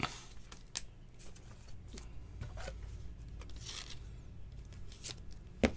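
Trading cards and clear plastic card holders being handled. Soft sliding and rustling are broken by a few sharp plastic clicks, the loudest near the end.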